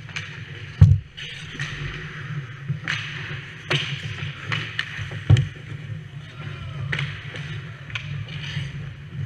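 Ice hockey heard up close from inside the goal net: skate blades scraping the ice over a steady rink hum, broken by sharp knocks of sticks and pucks. The two loudest knocks come about one second in and about five seconds in.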